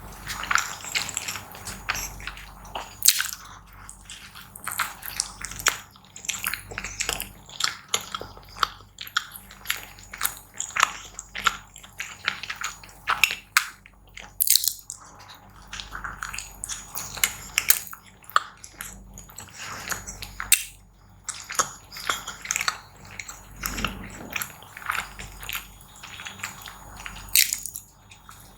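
Close-miked eating: wet chewing of a mouthful of food, with many short, irregular clicking and smacking mouth sounds.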